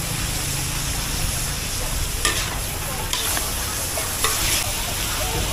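Food sizzling and frying in a large steel wok as it is stir-fried, with metal spatulas scraping against the pan. Several sharper scrapes come in the second half.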